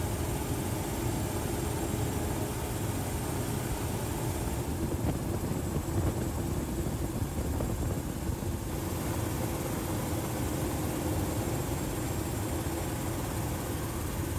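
Steady rescue-helicopter engine and rotor noise. It turns duller for a few seconds in the middle, then brightens again.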